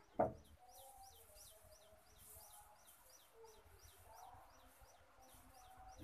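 A small bird chirping over and over, a short high downward chirp about three times a second, with fainter lower calls scattered between. One sharp knock sounds just after the start.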